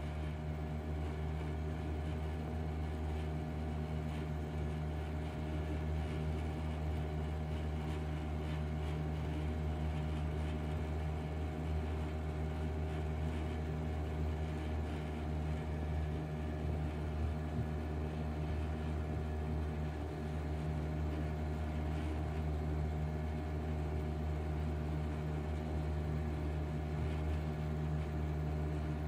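Suzuki DT4 4 hp two-stroke outboard running steadily at full throttle, pushing a 14 ft aluminium jon boat along.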